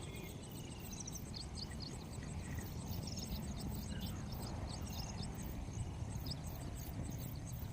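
Outdoor ambience: birds chirping in many short calls over a steady low rumble.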